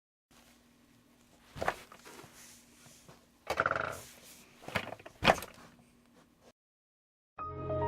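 A run of knocks and thuds over a faint steady hum, with a short squeak about halfway and the loudest bang about five seconds in. Music begins just before the end.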